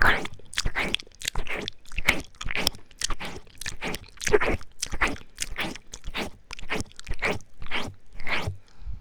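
Intense wet mouth sounds right at the microphone, ASMR ear-eating and ear-licking style: a steady run of smacks, licks and sucking clicks, about two a second.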